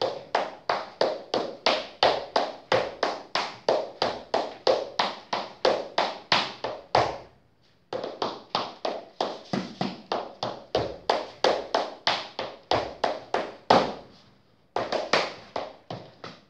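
Irish hornpipe dance steps: shoes tapping and striking a hard floor in a quick, even rhythm of about four to five taps a second, with two short breaks about seven and fourteen seconds in.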